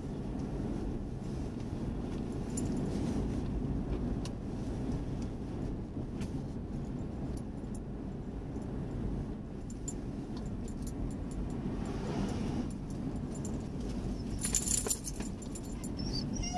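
Steady road and engine noise inside a moving car's cabin, with scattered light metallic jingles and a louder jingle about fifteen seconds in.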